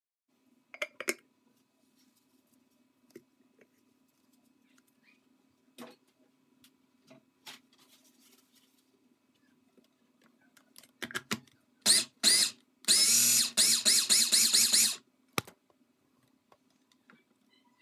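Push-top electric mini chopper whirring in short pulses while puréeing roasted peppers: a few quick bursts past the middle, then a longer choppy run of about two seconds, with light clicks before and one sharp click after.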